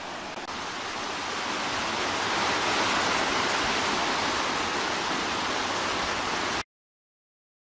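Rushing water of a mountain stream tumbling over boulders, a steady noise that swells over the first couple of seconds and then cuts off suddenly near the end.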